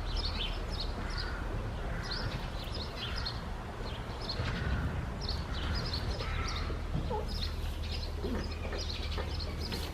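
Small birds chirping in many quick, short, high calls, over a steady low rumble.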